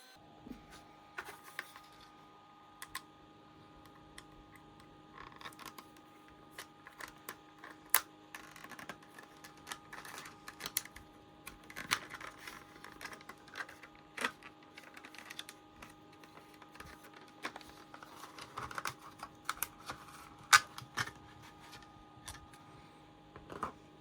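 Hands handling small hard plastic items, most likely the new laptop RAM modules in their plastic packaging: scattered light clicks and taps with short rustles. A faint steady hum runs underneath.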